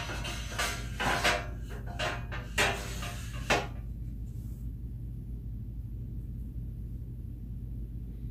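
Plastic mesh basket knocking and clicking against the cart's metal tube frame as it is fitted into place: a handful of sharp knocks over the first three and a half seconds, then only a low steady hum.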